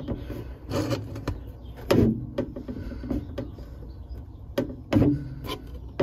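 Several knocks and clunks as Ikea Skorva steel mid beams and their brackets are handled and set in place, the loudest about two and five seconds in.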